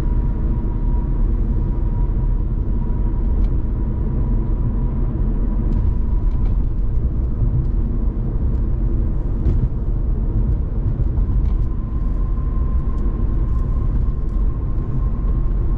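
Steady road noise of a car driving on a highway, heard from inside the cabin: low tyre rumble and engine, with a faint steady whine for the first six seconds or so that returns about eleven seconds in.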